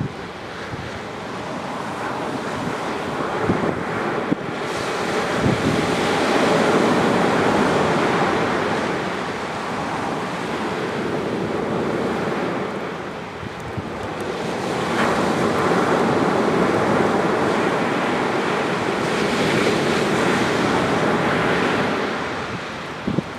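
Waves breaking and washing up a sandy beach on a slightly rough sea, surging louder and falling back in long swells, with wind buffeting the microphone.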